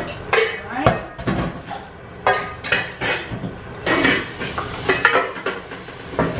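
Pots, pans and utensils clattering: a run of irregular knocks and clanks of metal kitchenware being handled.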